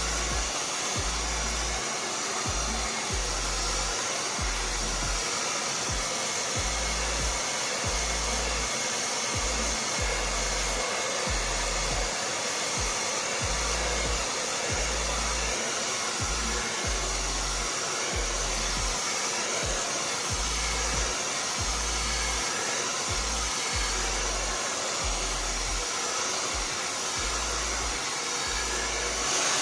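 Handheld blow dryer running steadily, a constant rushing hiss of air as it dries natural hair.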